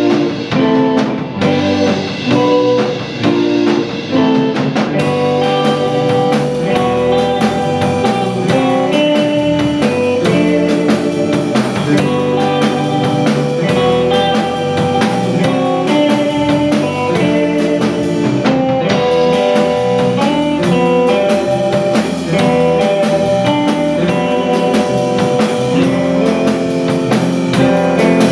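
Instrumental surf rock played live by a trio: electric guitar carrying the melody over electric bass and a drum kit. The drums fill in with steady cymbal about five seconds in.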